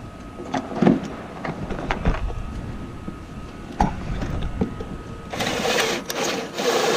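A few light knocks and clicks, then, about five seconds in, a Makita 18V cordless drill starts running and bores into the wooden deck planking with a steady loud whirr.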